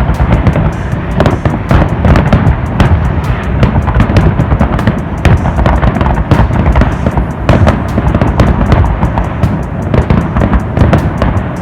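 Many fireworks going off at once: a dense, continuous crackling and popping over a steady low rumble of booms.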